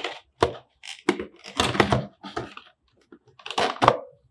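Clear plastic blister packaging being handled and pried open, crackling and clicking in a run of short, sharp bursts at uneven intervals.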